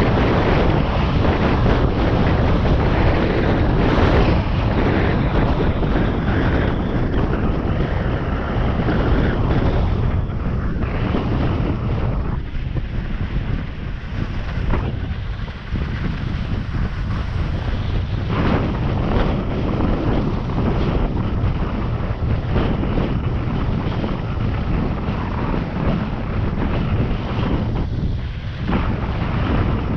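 Wind buffeting the camera's microphone as a skier glides downhill at speed, mixed with the hiss of skis running over groomed snow. The rush is steady and loud, easing a little for a few seconds about halfway through.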